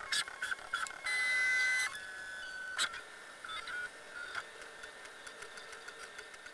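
Original Prusa i3 MK3 3D printer's stepper motors during its Z calibration before a print. First come short whirring moves with clicks, a few a second. About a second in, a loud steady whine lasts nearly a second, then a lower whine and a sharp click, after which the motors settle into a quieter steady hum as the nozzle comes down to the bed to begin printing.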